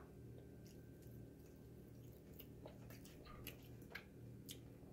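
Faint chewing of a slice of homemade vegan corned beef, with a few soft clicks of the mouth over a low steady hum.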